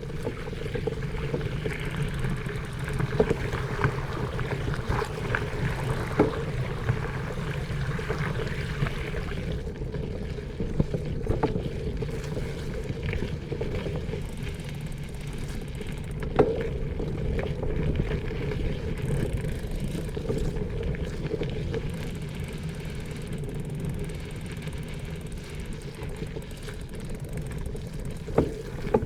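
Bicycle being ridden along a road: steady tyre and drivetrain hum with wind on the microphone, and a few sharp knocks or rattles, the loudest about 16 seconds in.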